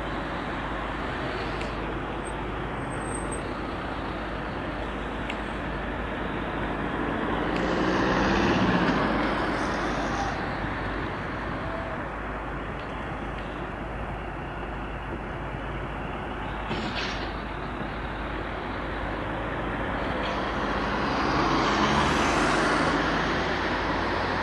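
Steady noise of heavy vehicle engines and road traffic, swelling louder twice, about a third of the way in and near the end.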